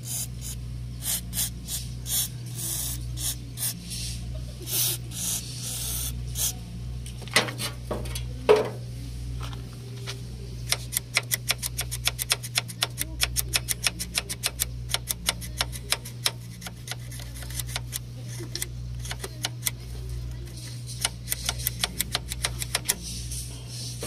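Short repeated bursts of WD-40 aerosol spray hissing onto the rusted, sticky latch of a car's front grille lock, to loosen it. A couple of knocks follow, then a long run of quick light clicks, several a second, over a steady low hum.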